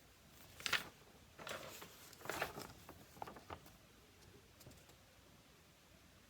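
Several short, soft rustling sounds.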